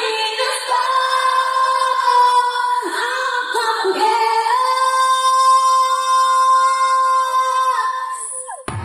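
A woman's voice singing into a microphone with no backing music, the notes bending at first and then one long high note held for about three seconds. It cuts off suddenly near the end.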